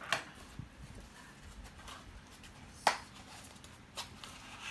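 Handling noise from a tabletop selfie ring light being unboxed: a few sharp clicks and knocks, the loudest a little under three seconds in.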